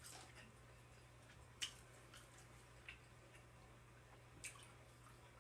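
Faint wet mouth sounds of someone chewing a scallop: four short clicks spread over a few seconds, over a low steady hum.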